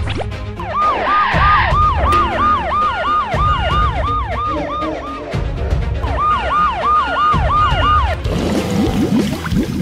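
Toy police car siren yelping in fast repeated sweeps, about three a second. It breaks off for a moment about five seconds in, then starts again for a shorter run, over background music with a steady bass beat.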